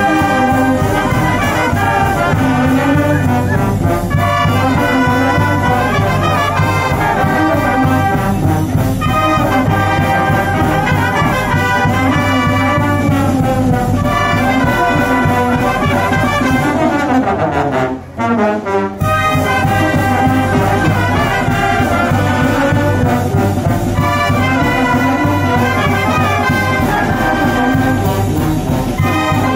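Brass-led band music with trumpets and trombones playing an upbeat swing tune. The music breaks off for about a second roughly two-thirds of the way through, then resumes.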